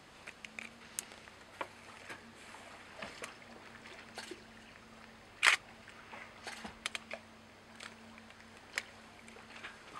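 Camera shutter clicks and small knocks, scattered and irregular, with one louder short rasp about halfway through, over a faint steady hum.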